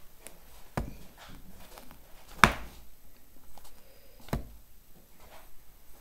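A blunt craft knife cutting small pieces out of a pre-cut sheet on a tabletop: light scraping with a few sharp clicks and taps, three of them louder, the loudest about two and a half seconds in.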